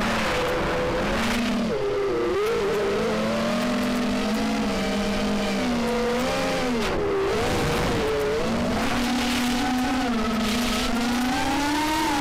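Drone's electric motors and propellers whining, the pitch rising and falling with the throttle and dipping sharply a few times, with air rushing over the onboard camera's microphone.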